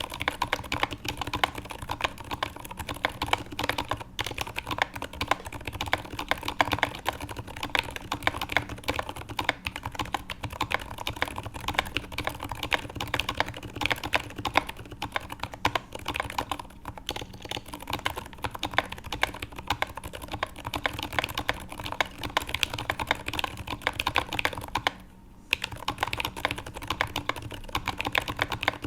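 Fast continuous typing on a custom mechanical keyboard with lubed and filmed Zeal Zilent silent tactile switches, GMK keycaps and an acrylic plate: a dense stream of keystrokes that stops briefly about 25 seconds in and then resumes.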